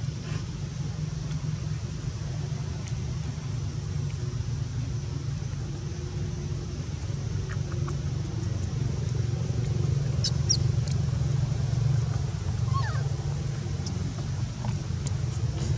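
A steady low rumble, with a few short high squeaks about ten seconds in and again a few seconds later.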